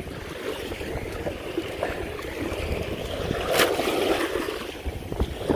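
Wind buffeting the microphone over a steady wash of sea water, with one short sharp click about three and a half seconds in.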